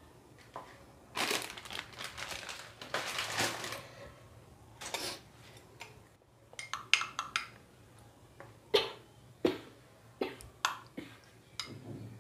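Metal spoon scraping around a stainless steel bowl of mango pulp, then a run of sharp clinks in the second half as the spoon knocks against the bowls while scooping pulp out.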